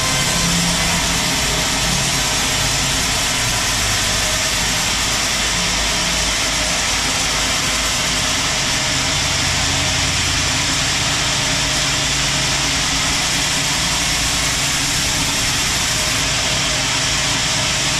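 Sawmill machinery running steadily: a low engine hum under a loud, even hiss.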